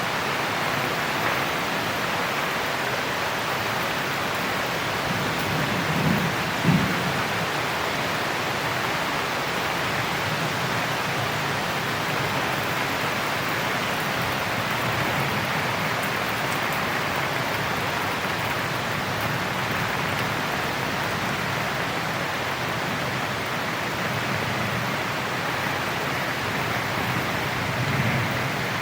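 Steady heavy rain, with a brief low rumble of thunder about six seconds in and a fainter one near the end.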